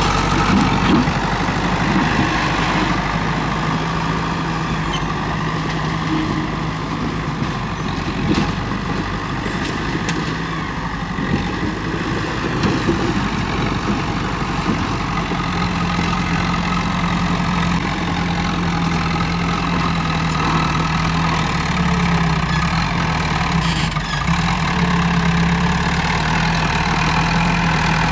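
Komatsu D31P bulldozer's diesel engine running steadily while working, with scattered clanks.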